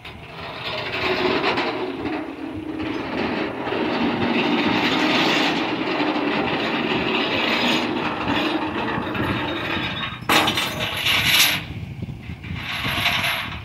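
Rollback truck's tilting bed and winch gear running with a steady mechanical rattle and grind, then sharp metallic clatters near the end.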